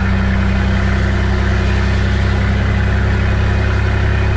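Diesel engine of a heavily loaded Scania truck running steadily on the road, a constant low note that holds the same pitch throughout.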